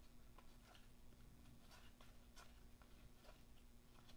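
Near silence, with a few faint, irregular soft clicks of cardboard trading cards being slid off a hand-held stack one at a time, over a faint steady hum.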